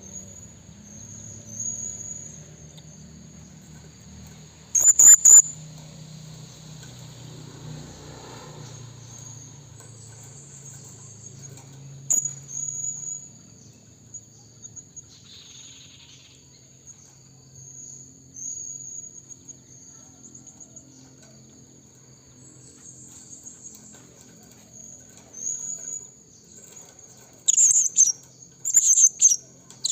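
Blue-crowned hanging parrot (serindit) giving sharp, high-pitched calls: a loud pair about five seconds in, a few more near the middle and a quick series near the end. A steady high insect drone runs beneath them.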